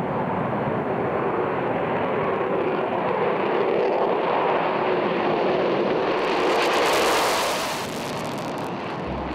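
F-22 Raptor's twin turbofan jet engines at takeoff power during the takeoff run and climb-out: a steady jet rush that swells into a loud, harsh crackling about six to eight seconds in, then eases off as the jet climbs away.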